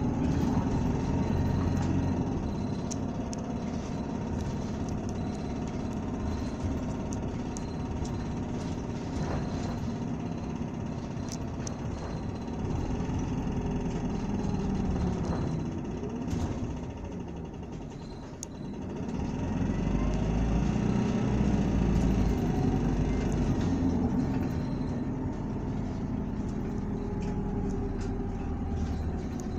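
Running sound of a 2019 Isuzu Erga city bus (2DG-LV290N2) with its four-cylinder turbodiesel, a steady engine and drivetrain drone with a thin whine. About two-thirds of the way through it quiets briefly, then comes back louder and deeper as the bus pulls again.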